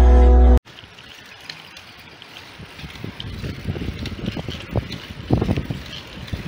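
The last half-second of an intro music tune cuts off abruptly, followed by wind buffeting the microphone of a camera riding on a moving bicycle, a low rumble in uneven gusts that grows stronger after a few seconds.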